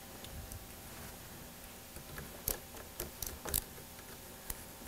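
Faint, small metallic clicks as a T-handle driver engages and turns the cap screws of a steel scope ring half clamped over an alignment bar. The clicks come singly and scattered, most of them in the second half.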